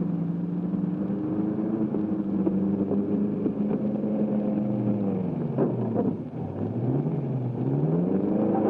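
Vintage motor car engine running hard, holding a steady pitch, then dropping and climbing again over the last few seconds as it slows and speeds up.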